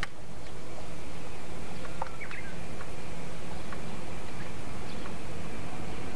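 A few short bird chirps, a small cluster about two seconds in, over a steady low rumble.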